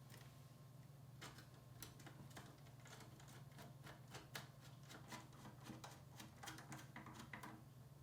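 Faint, irregular light clicks and taps of small hard parts being handled and fitted during a PC assembly, some in quick runs, over a steady low hum.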